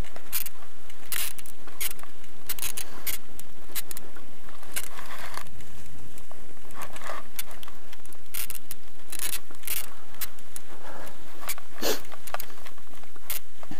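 Bicycle rattling and clicking over a rough dirt and gravel road, heard from the handlebars: many irregular knocks and jangles as it jolts over bumps, over a low rumble of the tyres on the surface.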